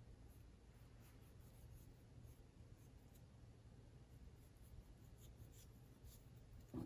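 Near silence, with faint scratching ticks of a paring knife slowly cutting a flake from a peeled raw potato.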